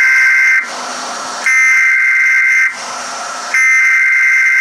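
Emergency Alert System SAME header: harsh, buzzing digital data tones sent in bursts about a second long with a gap of about a second, the end of one burst and then two more. This coded header opens the tornado warning broadcast and carries the alert type and area.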